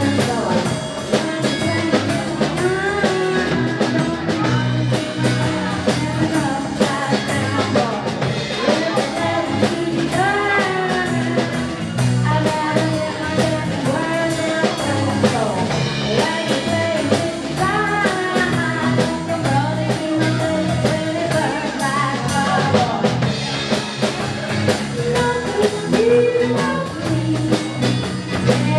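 Live band playing with drum kit, electric guitar and bass guitar under a woman's lead vocal, singing through most of the stretch over a steady drum beat.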